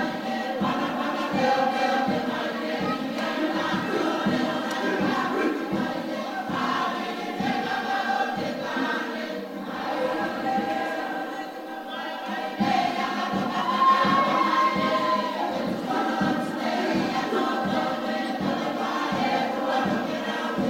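A Cook Islands group singing and chanting in chorus over a steady low beat of about three strikes a second. The beat drops out briefly just past halfway, then comes back louder.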